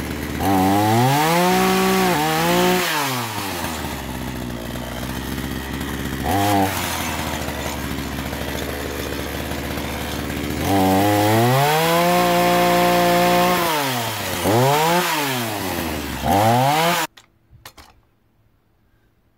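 Two-stroke petrol chainsaw idling and revved in several bursts, its pitch rising with each blip of the throttle and falling back to idle, held high for a few seconds twice. About 17 seconds in the engine cuts off suddenly, followed by a couple of faint clicks.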